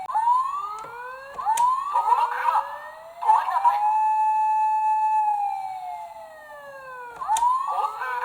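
Electronic siren of a toy emergency vehicle wailing, its pitch rising and falling slowly, with a second rising wail overlapping it and two sharp clicks.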